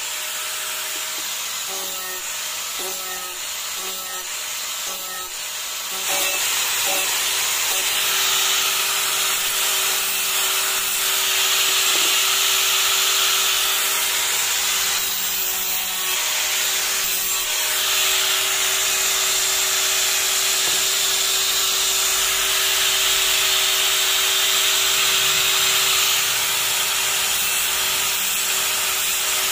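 Electric angle grinder running with a steady motor whine as its disc grinds and shapes a piece of orange PVC pipe. The grinding gets louder about six seconds in and carries on.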